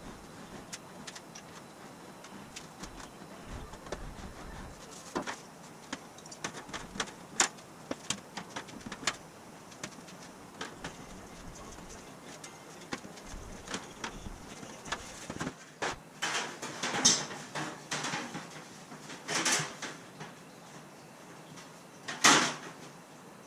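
Thin aluminum sheet panel being worked in an English wheel and handled, with scattered light clicks and rubbing. In the last several seconds come a few louder rattles of the sheet, the loudest shortly before the end.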